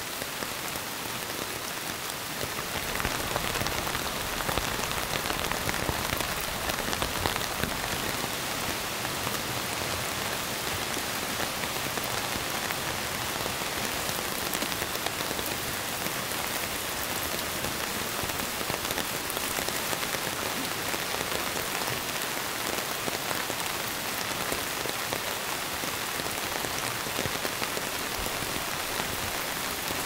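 Steady rain falling on tent and tarp fabric, a dense even patter of drops that swells over the first couple of seconds and then holds steady.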